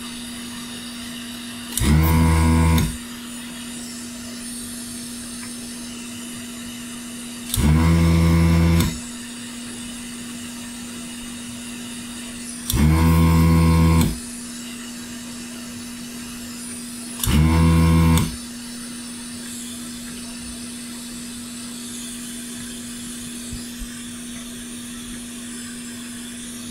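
Electric desoldering gun's vacuum pump switching on in four short bursts of about a second each, sucking molten solder out of an HDMI connector's through-hole pins, over a steady low hum.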